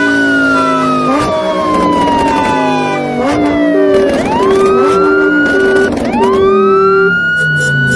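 Instrumental music with a siren-like wail that sweeps up, glides slowly down and sweeps up again twice, over held synth notes and a bass line.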